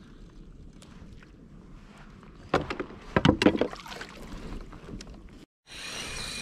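Water lapping against a kayak hull, with a cluster of sharp knocks and clatter from a fishing rod and reel being handled about two and a half to four seconds in. Near the end, after a brief dropout, a fishing reel's drag starts a steady buzz as a fish (a mahimahi) takes the live flying-fish bait and pulls line.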